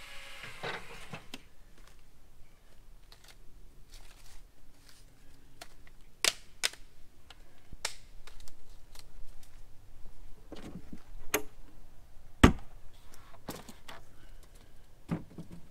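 Scattered sharp clicks and knocks of hard plastic pads and blocks being handled and stacked into a travel trailer's storage compartment, with one louder knock a little past the middle.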